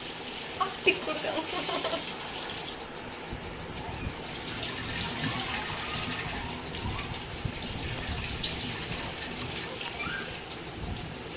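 Kitchen tap running onto raw chicken pieces being rinsed by hand in a metal pot, water splashing; the pot is then tipped and the rinse water poured off into the sink.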